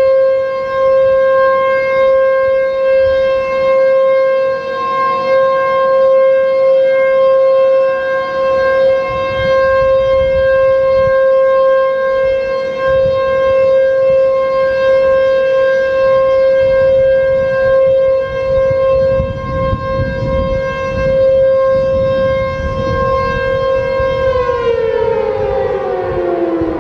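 H.O.R. Super-Sirex 50 HP outdoor warning siren sounding its steady alert tone at full speed. Near the end it winds down and its pitch falls steadily. A fainter second steady tone is heard for a while in the middle.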